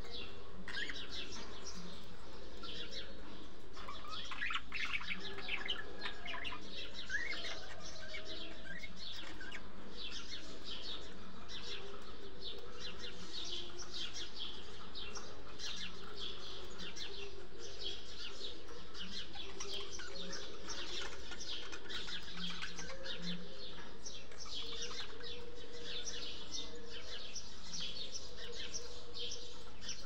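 A cage of budgerigars chattering: continuous quick chirps and warbles, with a busier patch of lower chirping about four to eight seconds in.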